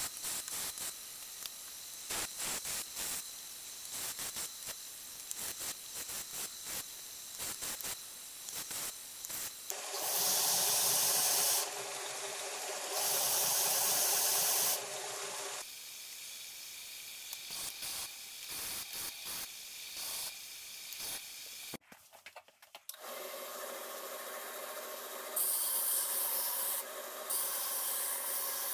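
Belt grinder running while a wooden knife handle is sanded to shape against the belt: short choppy rubbing passes at first, then two louder passes of a second or two each. About three-quarters of the way through the sound cuts off, and another belt grinder runs with a steady hum, the handle pressed against it in two louder stretches near the end.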